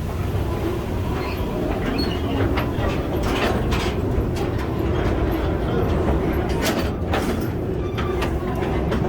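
Mine ride train rolling along its track: a steady low rumble of wheels on rails, with irregular sharp clacks.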